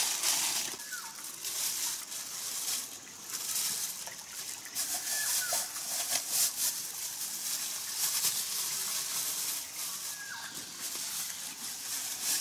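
Plastic bag crinkling and rustling as gear is packed into a backpack, with a bird giving three short calls in the background.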